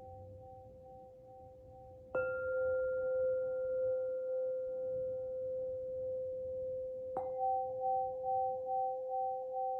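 Crystal lyre ringing with a pure tone: two held notes, the higher one pulsing, struck afresh about 2 s in and again about 7 s in.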